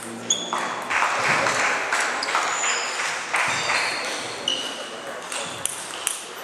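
Table tennis balls clicking and pinging off tables and bats, many short sharp hits scattered through the hall, with a denser, noisier stretch in the first half.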